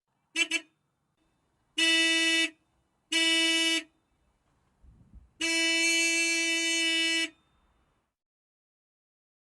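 Car horn honking on one steady pitch: two quick short toots, then two honks of under a second each, then one long honk of about two seconds. A faint low thump comes just before the long honk.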